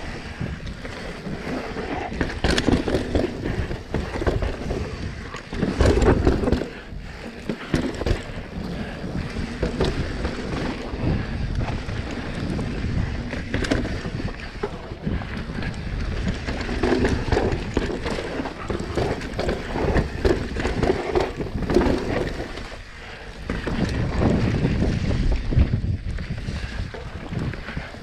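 Wind buffeting the microphone on a fast mountain-bike descent, with tyres rolling over the dirt trail and the bike knocking and rattling over bumps in irregular surges.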